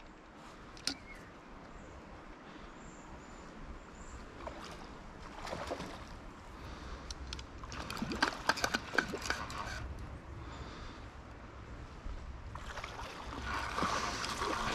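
Splashing and sloshing of shallow creek water as a hooked jack steelhead is played in close, with a cluster of sharp splashes about eight to nine seconds in and a steadier wash of moving water near the end.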